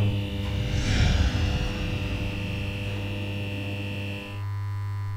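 Logo intro sound effect: a steady low electric hum like a neon sign buzzing. A swelling whoosh comes about a second in, and a high ringing tone fades out after about four seconds.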